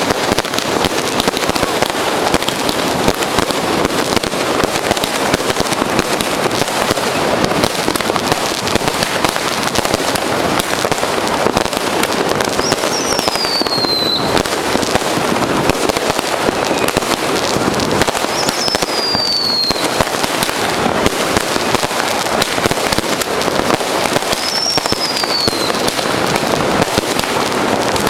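Dense, unbroken crackle of fireworks and firecrackers going off on every side, countless small bangs running together. Three times a high whistle sounds over it, each falling in pitch for about a second and a half.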